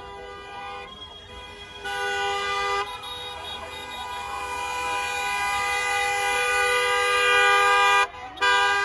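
Two-note car horn honking: a short blast about two seconds in, then a long held blast that grows louder, breaking off briefly near the end before sounding again.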